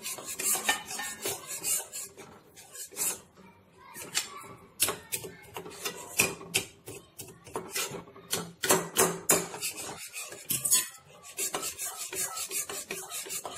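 Metal spatula scraping and stirring around the inside of a steel kadhai in quick, irregular strokes, as sugar and ghee melt into caramel.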